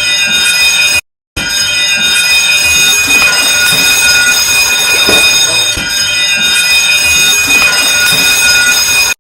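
Ship's alarm sounding one steady, high-pitched tone. It breaks off briefly about a second in, resumes, then stops abruptly.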